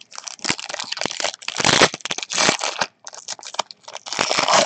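Plastic trading-card pack wrapper crinkling and tearing as it is ripped open, in a run of irregular crackles.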